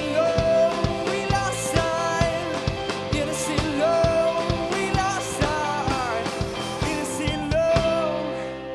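A band playing rock music: a singer's voice over electric guitars and a drum kit with a steady beat. The music fades down near the end.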